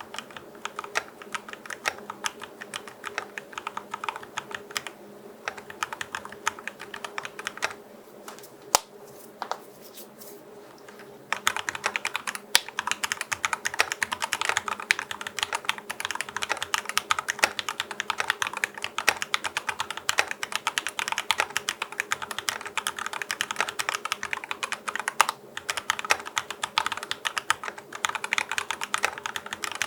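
Mechanical keyboard typing on Akko x TTC Demon switches, lubed with a Krytox 105/205 mix, in a GMMK Pro with a brass plate. Slower separate keystrokes come first, then a brief lull, then fast continuous typing from about a third of the way in.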